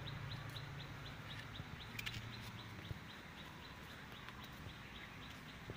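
Faint outdoor ambience with a small creature's high, rapid chirping, evenly paced at about five chirps a second, and a single light click about two seconds in.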